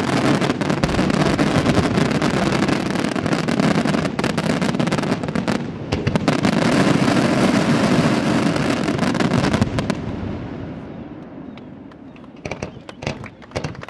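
Display fireworks going off in a dense, rapid barrage of bangs and crackling that dies away about ten seconds in, leaving a few scattered cracks near the end.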